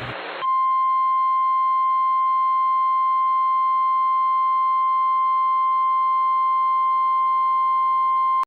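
NOAA Weather Radio warning alarm tone: a single steady 1050 Hz tone held for about eight seconds and cut off sharply, signalling that a weather warning broadcast follows. A split second of hiss comes before it.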